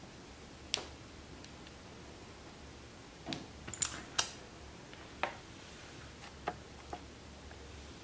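Scattered light clicks and taps, about seven spread over several seconds, from hands handling a laptop and small tools on a tabletop. A faint low hum runs underneath.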